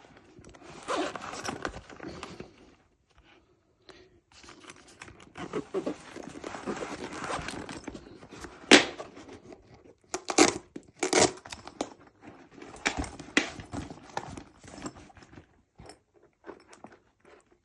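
Handling noise from a fabric tool bag: rustling and crinkling of heavy fabric with irregular sharp knocks and clacks, the loudest about 9 seconds in and several more between about 10 and 13 seconds.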